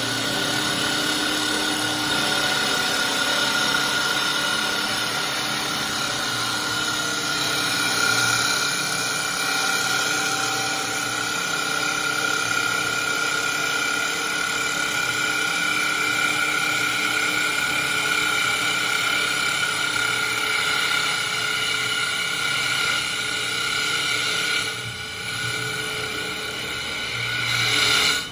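WS-L1512 three-spindle CNC wood turning lathe running, its spindles and cutters turning three wooden balusters at once: a steady high machine whine over the hiss of wood being cut. Near the end the sound dips briefly, then swells again.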